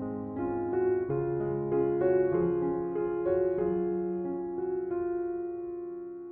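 Background piano music, a slow melody of sustained notes over held chords, with the last chord dying away near the end.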